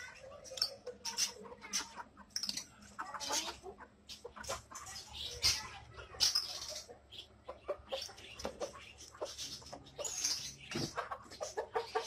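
Budgerigars chattering: many short, high chirps overlapping irregularly, as from several birds in one cage.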